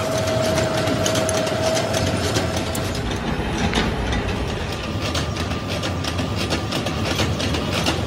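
Horizontal hobbing machine running in a spline-cutting setup on a truck axle shaft, with a rapid mechanical clatter of many quick clicks. A steady whine sounds for the first three seconds, and a fainter higher tone comes in later.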